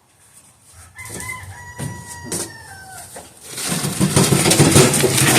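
A rooster crowing once about a second in: one long call that drops in pitch at the end. From about three and a half seconds in, a louder steady rushing, rumbling noise takes over.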